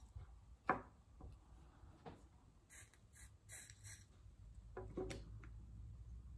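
Light handling sounds at a wooden workbench as a soldering iron and a small battery pack are picked up and moved: a few short taps and rubs, the sharpest about a second in and another cluster around five seconds in, over a faint low hum.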